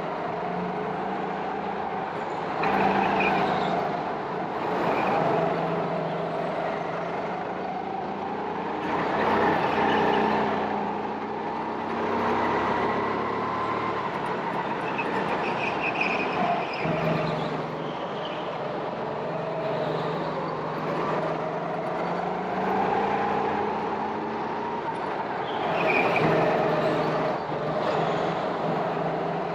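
Go-kart engines running, their pitch rising and falling as they rev up and ease off, the sound swelling and fading every few seconds.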